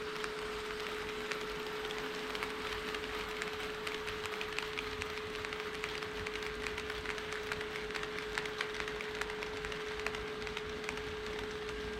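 HO scale model train running on KATO Unitrack: many small irregular clicks of wheels over the track, busiest in the middle, over a steady electric hum.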